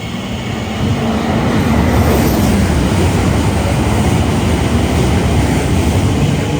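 A train passing close by, a loud low rumble of wheels on rails that builds over the first second and then holds steady.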